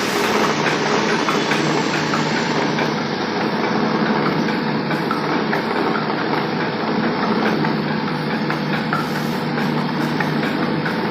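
Electric-motor-driven village grain mill running steadily: a continuous dense mechanical whir with a steady low hum and faint scattered ticks.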